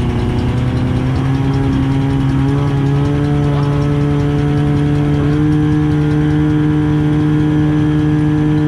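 Portable fire pump engine running loud and steady, its pitch stepping up a few times as the throttle is opened, then holding at the higher speed.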